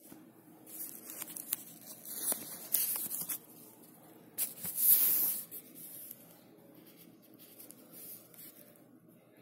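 Clear plastic packaging crackling and rustling in the hands as a tempered-glass screen protector is taken out of its case, in several bursts, the loudest about five seconds in.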